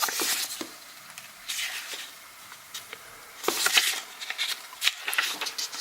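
Paper rustling in several short bursts as pages of a printed instruction manual are turned by hand.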